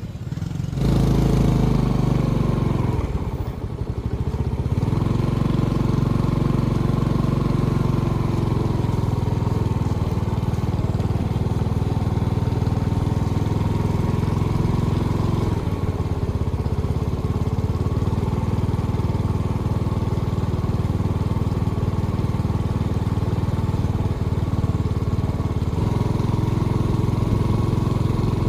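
A small engine running steadily, starting about a second in and easing briefly around three to four seconds in.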